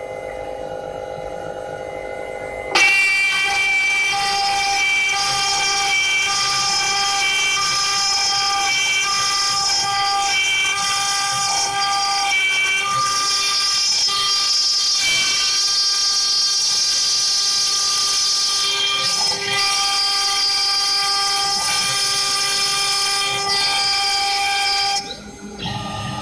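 CNC glass-engraving machine's drive motors whining in several steady tones at once, some tones cutting in and out as the machine moves. The sound steps up sharply about three seconds in and falls back near the end.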